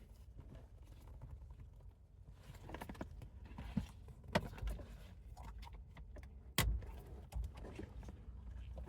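Scattered small knocks, clicks and rustles inside a car, with one sharp thump about two-thirds of the way through, over a low steady rumble.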